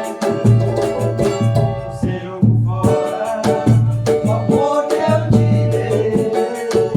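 A pagode band playing a song, with a steady bass line, percussion and singing.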